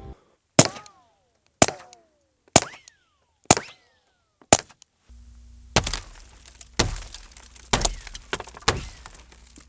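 .22 Long Rifle bullets striking a car windshield, heard from inside the car: a series of sharp cracks about one a second, nine in all. Some are followed by a short falling whine. From about halfway on, a steady low hum runs under the hits.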